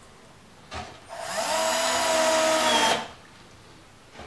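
Cordless drill/driver driving a screw through a drawer slide into a plywood drawer box: a short click, then the motor whines up to speed about a second in, runs steadily for about two seconds and stops.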